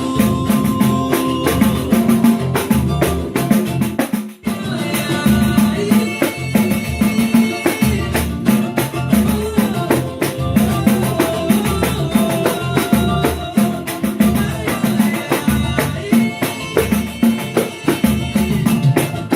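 Instrumental passage of a Brazilian pagode song, driven by busy percussion: drums with tambourine and shaker-like rattles over a bass groove. The sound cuts out for a split second about four seconds in.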